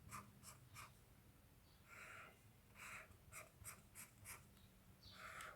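Faint pen scratching in a string of short, irregular strokes with brief pauses, as a diagram is drawn by hand.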